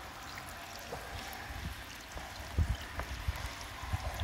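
Rainwater trickling from a PVC downspout onto washed gravel in a plastic debris-catch bowl and dripping through its holes into the water tank below: a steady light splashing. A few low thumps in the second half.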